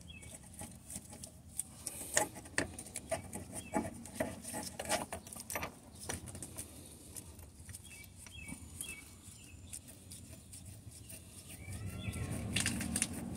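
Irregular light clicks and knocks of metal parts being handled at the engine torque mount bolt, thickest in the first half. A few faint short chirps are heard in the background.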